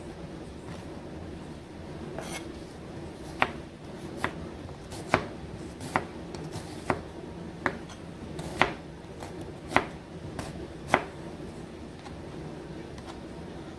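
Kitchen knife slicing a red onion on a plastic cutting board: sharp taps of the blade reaching the board, about a dozen at an unhurried, uneven pace, starting about two seconds in.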